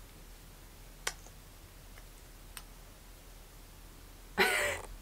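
Small clicks from a plastic lip gloss tube and its wand being handled, one about a second in and a fainter one later. Near the end comes a short, loud breathy sound.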